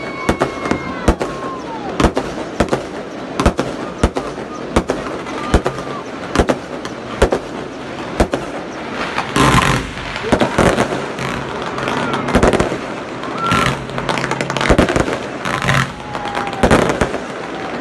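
Fireworks going off: an irregular run of sharp bangs, about one or two a second, with denser bursts of crackling about nine to ten seconds in and again later on.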